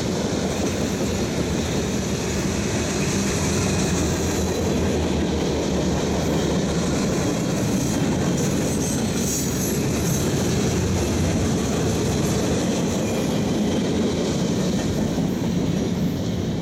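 Freight train cars rolling past: the steady rumble and clatter of steel wheels on the rails as covered hoppers, gondolas and boxcars go by.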